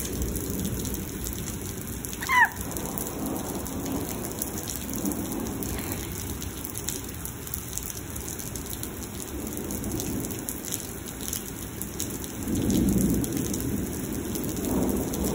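Heavy thunderstorm: steady downpour of rain on the street and pavement, with low thunder rumbling in swells, loudest about thirteen seconds in. A brief high gliding chirp cuts through about two seconds in.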